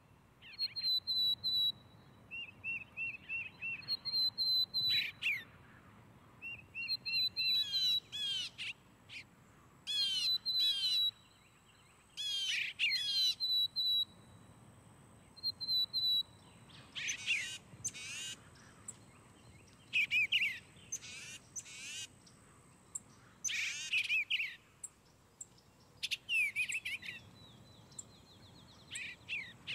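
Small backyard songbirds calling: runs of short, high, evenly repeated notes, then, about halfway through, denser bursts of quick sweeping chirps.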